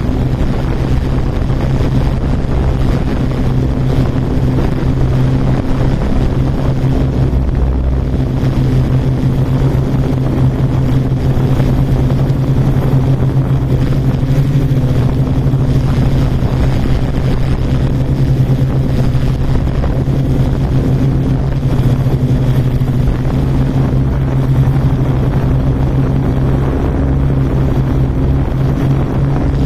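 Quadcopter drone's propellers and motors humming steadily while it hovers, a constant low drone over wind noise on the microphone.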